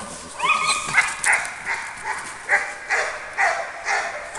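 Labrador barking excitedly: a rising yelp about half a second in, then a run of short, high-pitched barks, about two a second.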